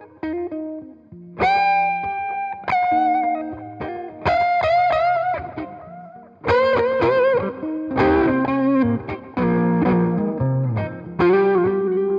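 1980 Greco EG-500 Les Paul-style electric guitar with Maxon humbucking pickups, played through a Headstrong Royal Reverb amp. It plays a slow lead line of sustained picked notes with wide vibrato and bends, moving to several notes ringing together in the second half.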